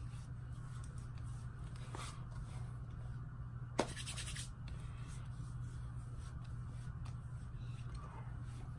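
Fingers and palms rubbing and patting on the face, a faint scratchy skin-on-skin sound, over a steady low hum. One sharp click a little under four seconds in, with a short rattle after it.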